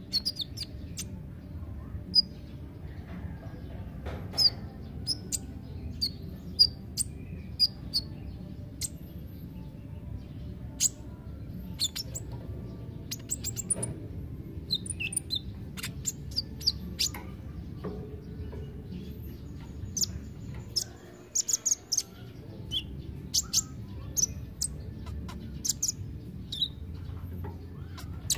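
Male purple-throated sunbird (kolibri ninja) giving short, sharp, high chips and twittering notes at irregular intervals. A steady low background hum runs underneath.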